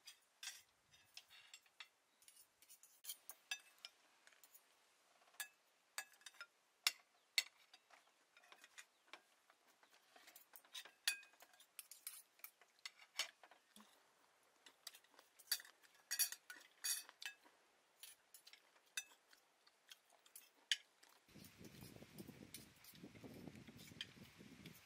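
Spoons and forks clinking and tapping on plates and bowls during a meal, in light irregular clinks. A low background sound comes in near the end.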